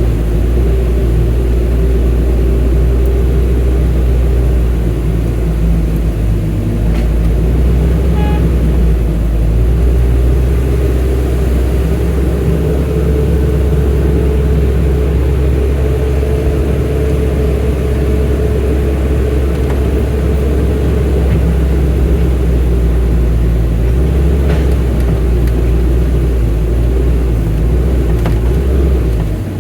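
Excavator's diesel engine running steadily, a loud continuous drone with a steady hum over it.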